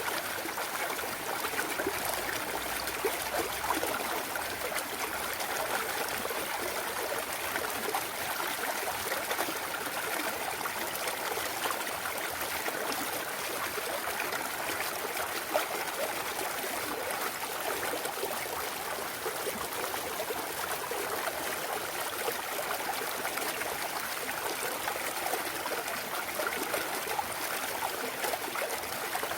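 Clear mountain stream running and trickling over rocks: a steady, even babble of water with small splashes throughout.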